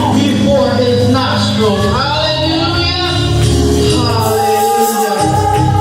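Music with singing. A sung note is held from about four seconds in, while the low bass drops out for a moment just before the end.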